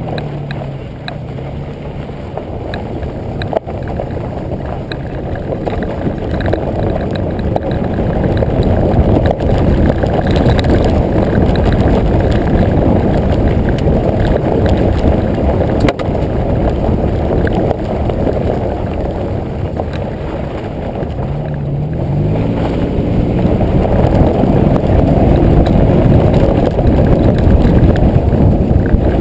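2005 Nissan Xterra's 4.0-litre V6 and exhaust running while driving off-road, heard from a camera on the lower rear bumper, buried in a loud, steady low rumble of wind and tyre noise. The engine's pitch rises about three-quarters of the way through as it accelerates.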